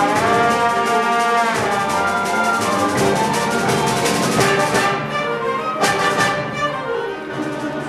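School symphonic band playing live, brass to the fore: French horns, trombones and saxophones in sustained chords. About five seconds in the sound thins out, and a single percussion hit comes just before six seconds.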